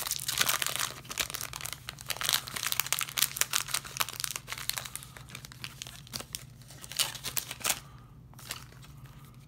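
Foil booster-pack wrapper crinkling and tearing as it is pulled open by hand. Dense crackling for the first few seconds, then a few scattered crinkles as it quietens.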